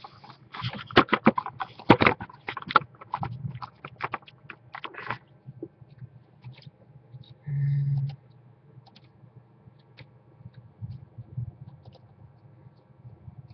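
Handling noise on a webcam's microphone as the camera is turned and set back in place: a rapid run of knocks and scrapes for about five seconds, then a brief low hum near the middle, then only faint clicks.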